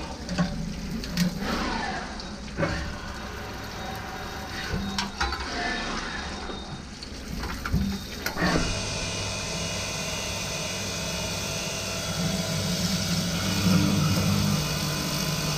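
Drilling and chamfering machine running under flooding coolant, the coolant splashing and hissing over the tooling, with scattered sharp mechanical clicks and knocks through the first half. From about eight and a half seconds in it settles into a steadier motor hum with a faint whine.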